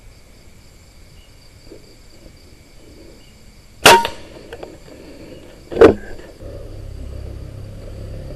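Scoped air rifle firing at a flying fox: a sharp crack about four seconds in, then a second sharp crack about two seconds later. Night insects trill steadily underneath, and a low rumble starts near the end.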